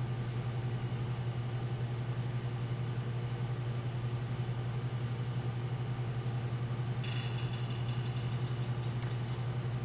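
A steady low mechanical hum. A faint high-pitched whine joins about seven seconds in and lasts a couple of seconds.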